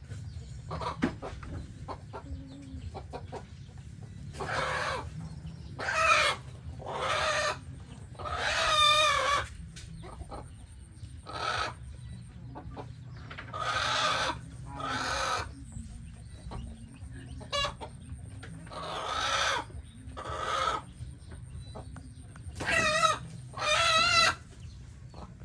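Mother hen with chicks giving loud, harsh squawking calls, about eleven of them a second or more apart and often in pairs: defensive warning calls at an intruder close to her brood.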